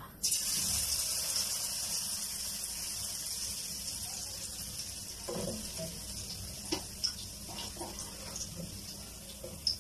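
A besan-battered pointed gourd (potol) slice sizzling in hot oil in a frying pan. The sizzle starts suddenly just after the slice goes in and eases off slowly, with scattered crackles and pops.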